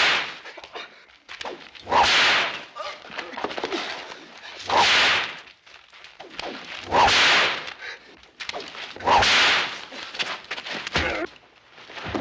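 Bullwhip lashing five times, about once every two seconds, each stroke a loud swishing crack.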